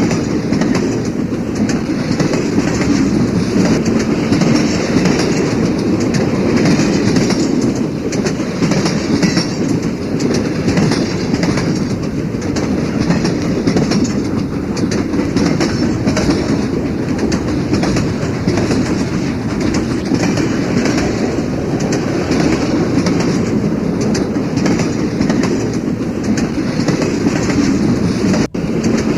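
Train wheels clattering on the rails of a moving train, a steady loud rumble with clickety-clack, broken by a momentary drop-out near the end.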